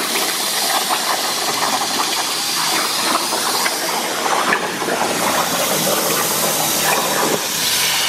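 CNC plasma table cutting metal plate: a steady, loud hiss from the plasma arc and its air, laced with rapid crackling.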